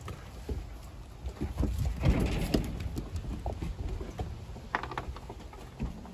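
Puppies' paws and claws tapping and scuffling on wooden deck boards during play: a loose run of small clicks and knocks, busiest about two seconds in.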